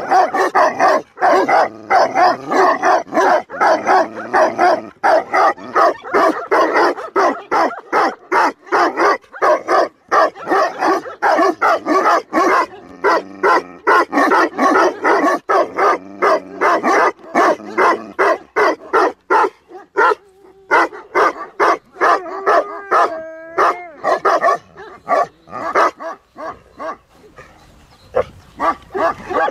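Several Tibetan Mastiffs barking without pause, in rapid overlapping barks. About three-quarters of the way through, the barking briefly gives way to a short pitched cry, then thins out near the end before picking up again.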